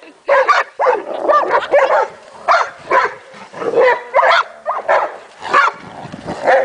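Several Leonbergers barking during rough play-fighting, short barks coming about twice a second.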